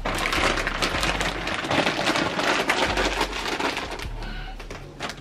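Potting soil and small stones crackling and rustling as they are gathered up, dense and irregular, easing off about four seconds in.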